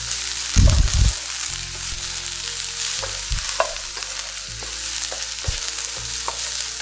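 Vegetables sizzling in a hot pan on high heat while being stir-fried. There is a loud clatter about half a second to a second in, and a few short utensil taps on the pan later.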